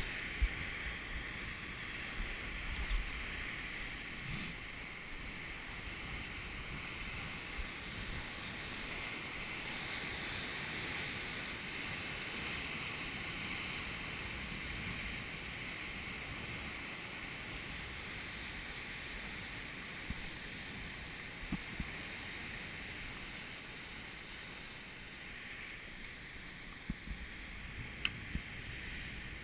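Sea surf breaking and washing over coastal rocks as a steady rushing hiss, with wind buffeting the microphone and a few brief knocks.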